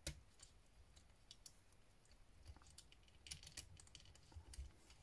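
Faint, scattered clicks of plastic Lego Technic parts as wheels are pushed onto their axles.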